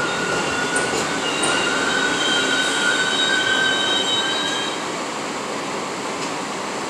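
New York City Subway 6 train creeping along elevated track and braking to a stop, wheels and brakes squealing in a few high steady tones over a steady rumble. The squeal stops about five seconds in, leaving a steady hiss and rumble.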